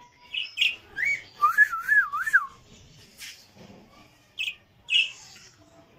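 Budgerigars giving short chirps, with a clear whistle that wavers up and down several times, the loudest sound, about a second and a half in.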